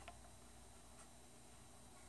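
Near silence: room tone, with two faint ticks about a second apart.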